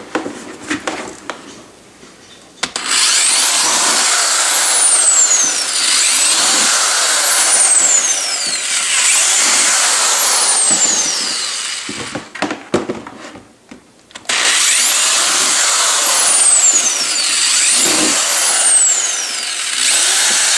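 Corded electric drill running as a twist bit bores holes through the thin plastic bottom of a storage tote, in two long runs with a short pause of small clicks and handling noises between them. Its high whine rises and falls several times.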